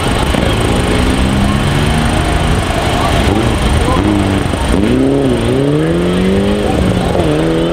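Mitsubishi Lancer Evolution VI rally car's turbocharged four-cylinder engine under hard acceleration. Its pitch climbs, drops briefly at a gear change and climbs again, then falls and rises once more near the end.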